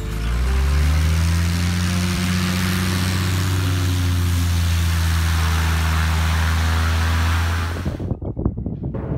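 Light single-engine propeller plane's engine running at high power with the rush of the propeller, its pitch rising as it throttles up in the first second, then holding steady. It stops abruptly about eight seconds in and music takes over.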